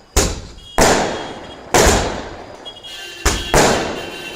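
Fireworks going off in a rapid series: five sharp bangs, irregularly spaced, the fourth and fifth close together about three seconds in, each dying away quickly.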